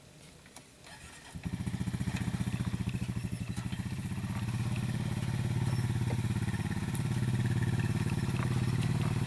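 A vehicle engine comes on abruptly about a second and a half in and keeps running at a steady, low, rapid pulsing idle.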